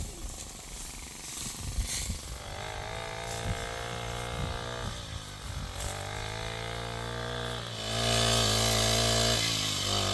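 A small engine starts about two seconds in and runs with its pitch wavering up and down, then runs louder and steady from about eight seconds in, dipping briefly near the end.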